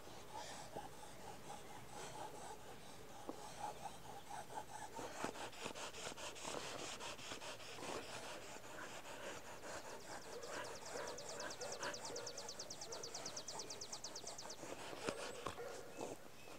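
Faint dog panting with rustling and rubbing close to the microphone. About ten seconds in, a fast, even run of fine high ticks lasts for about four seconds.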